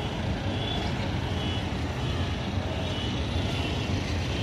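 Steady rumble of city road traffic heard from a rooftop, with a few faint short high-pitched beeps now and then.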